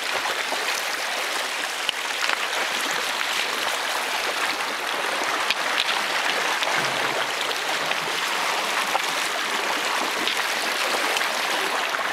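Shallow mountain creek rushing over rocks close by: a steady, even rush of water, with faint scattered clicks.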